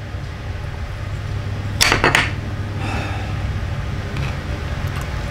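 Steady low hum of a small restaurant room, with a quick clatter of tableware about two seconds in: two or three sharp knocks close together.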